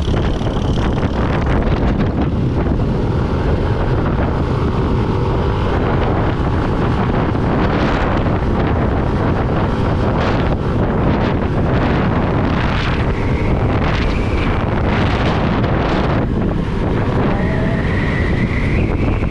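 Wind rushing and buffeting over the microphone of a moving motorcycle, with the motorcycle's engine mostly buried beneath it. A faint rising whine comes in near the end.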